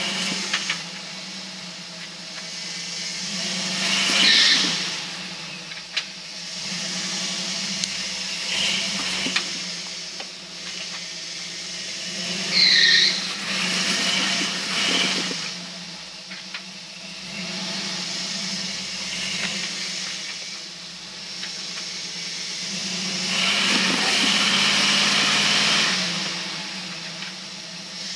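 A 1969 Ford Bronco's engine running at low speed while it crawls over rocks, the noise swelling and easing as it works across the trail. Short high squeaks come about 4 seconds in and again around 13 seconds.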